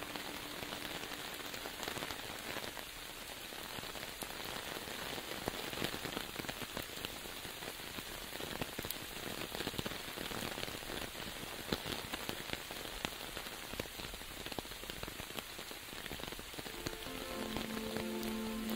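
Steady rain: an even hiss dotted with many small drop ticks. Music with a held low note comes back in near the end.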